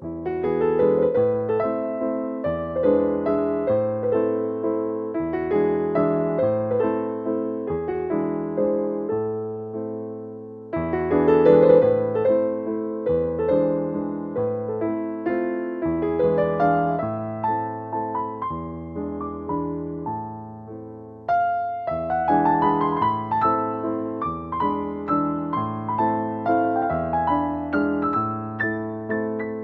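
Background piano music: a gentle, slow melody over a repeating bass line, in phrases that start afresh twice.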